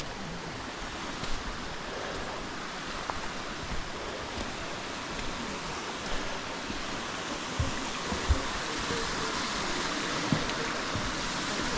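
Rushing water of a forest creek, a steady hiss that grows louder over the second half, with a few low thumps.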